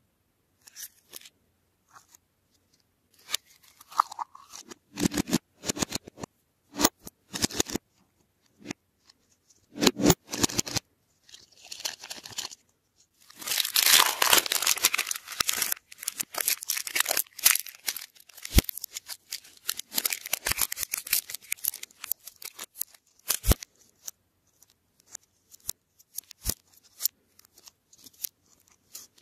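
Plastic candy packaging handled by hand: wrappers crinkling and plastic shells clicking and rattling in irregular bursts, with a longer stretch of steady crinkling about 14 seconds in.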